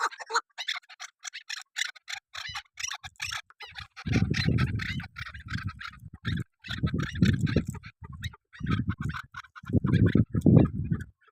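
Female chukar partridge (chakor) calling, a fast run of sharp clucking chuck notes repeated many times a second. About four seconds in, loud low rumbling bursts come and go four times under the calls.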